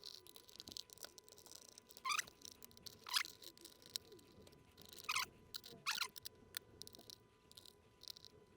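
Flathead screwdriver turning screws out of a plastic toy case, the screws giving four short, faint squeaks as they turn in the plastic, with small clicks of the tool between them.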